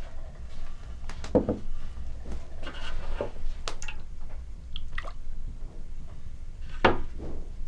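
Wet squelching of raw lungs being handled, a handful of separate squishes with drips of liquid.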